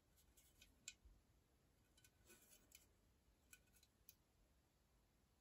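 Near silence, broken by a few faint, short clicks and taps from an aluminium drink can being turned over in the hands.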